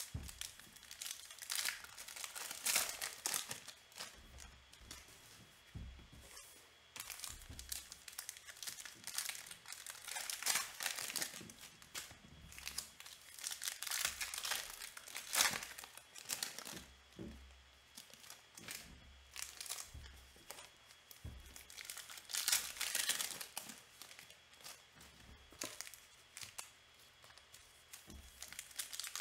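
Plastic trading-card pack wrappers being torn open and crinkled by hand, the rustling coming and going irregularly as pack after pack is opened.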